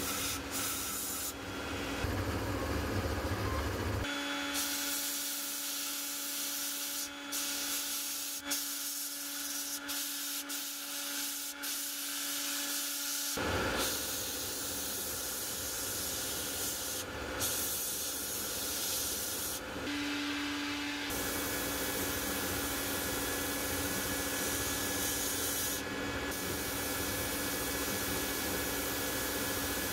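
Sandblasting in an abrasive blast cabinet: the nozzle hisses steadily as grit is blasted onto a small metal part of an electric fire bell, cleaning it back to bare metal. The blast breaks off briefly several times, and a steady hum runs beneath.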